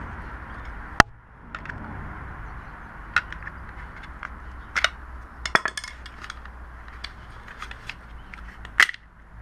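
Sharp snaps and clicks of a motorcycle's front indicator fitting being forced loose by hand and with a screwdriver: one loud snap about a second in, scattered clicks with a quick cluster in the middle, and another strong snap near the end.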